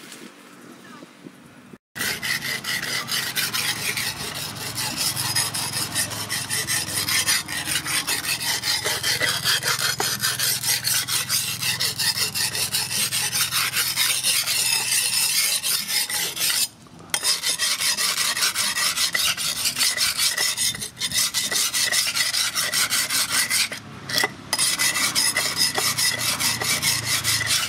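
Steel knife blade being sharpened on a flat sharpening stone: quick back-and-forth rasping strokes, starting about two seconds in and pausing briefly a few times.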